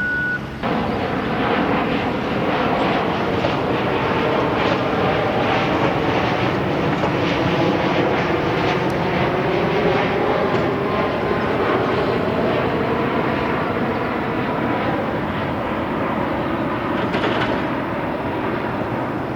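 Jet airliner passing low overhead: a loud, steady engine noise that builds about half a second in and eases slightly near the end.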